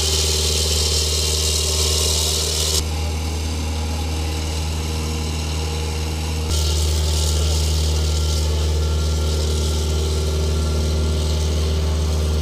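Engine of the building-moving rig running steadily at low speed, a deep even hum as it hauls the brick building on multi-axle hydraulic dollies. The higher part of the sound changes abruptly about three seconds in and again about six and a half seconds in.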